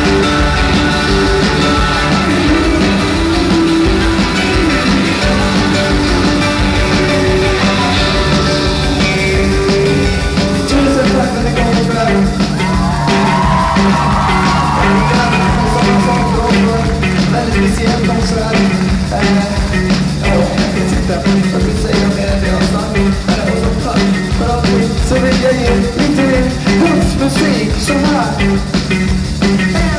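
Live rock band playing: electric guitar, keyboards and drums with a steady beat, and a male lead singer's voice over them.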